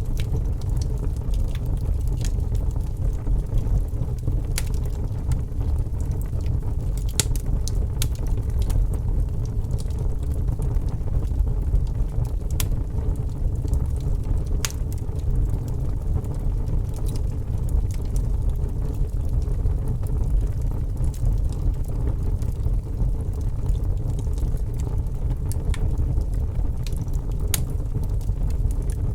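Fire crackling: a steady low rumble of flames with sharp pops and snaps scattered irregularly through it, a few every several seconds.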